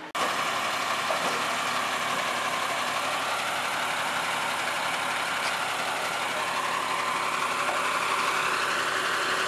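An engine running steadily at an even pace.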